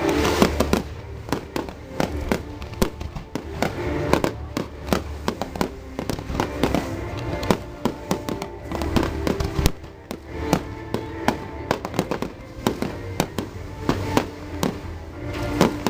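Fireworks going off in rapid, irregular bangs and crackles, with comets rising and small shells bursting, over the show's music.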